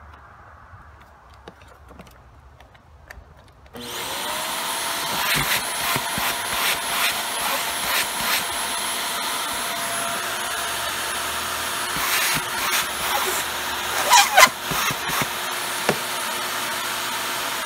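Hoover WindTunnel Air Pro upright vacuum's motor switched on about four seconds in, its whine rising as it spins up, then running steadily with a few knocks and rattles near the end. Suction is back now that a sock blocking the hose has been pulled out.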